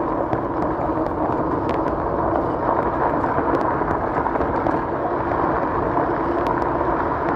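E-bike riding along a dirt and gravel trail: steady tyre rumble over the ground with scattered small clicks of stones, over a steady hum.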